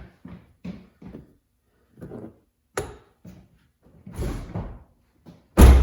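A run of light knocks and clunks from handling things, a sharp click about three seconds in, a longer rattling clatter a second later, and a loud, heavy slam near the end.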